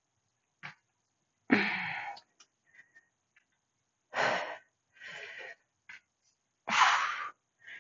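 A woman's heavy breathing under load during kettlebell farmer squats: four forceful, noisy breaths in and out a second or two apart, the loudest about a second and a half in and near the end.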